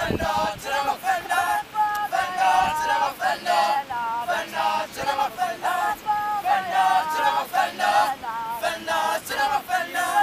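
A group of voices singing a cappella in short, rhythmic, repeated phrases.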